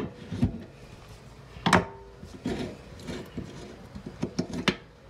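Scattered clicks, taps and light scraping of an adjustable wrench and fingers working the cartridge retaining nut loose on a Delta single-handle faucet. The loudest sound is one sharp click with a brief ring about a second and a half in.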